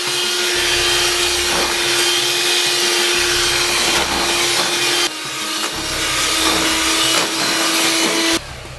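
Electric hand mixer running steadily with its beaters churning thin clay paint in a plastic bucket, a motor hum with a steady pitch. About five seconds in it drops a little in level and pitch, and it cuts off abruptly near the end.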